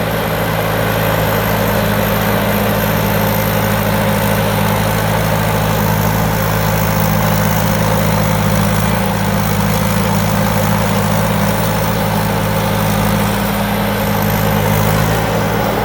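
Diesel engine of a Thai Seng Super Jiw combine harvester running steadily at a constant speed, a loud even drone with no change in pitch.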